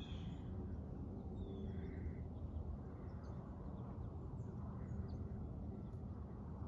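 Quiet woodland ambience: a steady low background rumble with a few faint, short bird chirps scattered through it.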